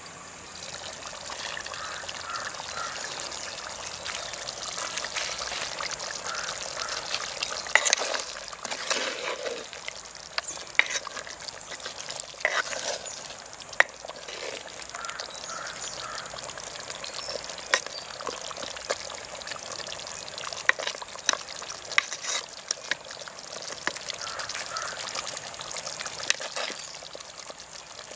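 Jackfruit seed curry simmering and bubbling in a pot, louder once the lid comes off about half a second in. A ladle stirs through it, with frequent sharp clicks and knocks against the pot.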